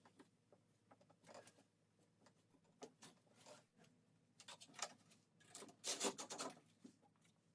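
Faint, scattered scraping and clicking of hand work on fittings, with short rubbing scrapes; the loudest cluster comes about six seconds in.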